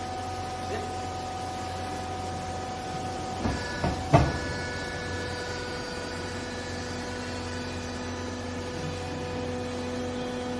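Hydraulic baler's electric motor and hydraulic pump running with a steady hum and whine. About three and a half seconds in come a few sharp knocks, the loudest about four seconds in, and the whine then settles to a lower pitch.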